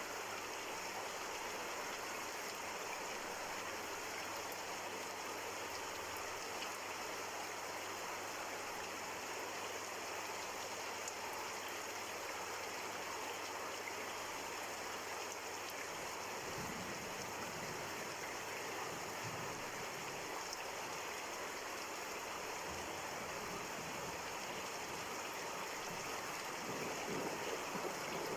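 Steady rain falling, an even hiss of drops. A low rumble swells near the end.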